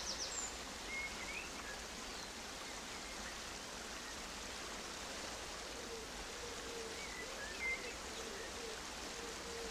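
Soft, steady hiss of outdoor ambience, with a few faint short chirps about a second in and again near the end.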